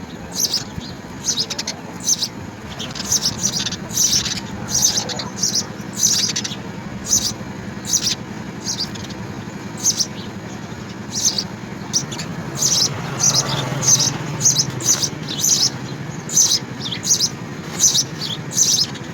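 House sparrow chirping over and over in short, sharp chirps, irregular and coming faster in the second half, over a steady low background hum.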